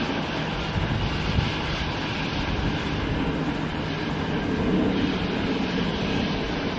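Airbus A330 airliner taxiing, its jet engines making a steady rumble and hiss.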